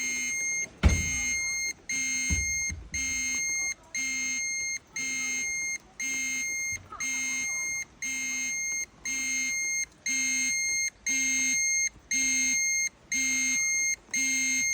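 Handheld Geiger counter's alarm beeping steadily, one long electronic beep about every second, as it registers a high radiation dose rate. Two low thumps come in the first few seconds.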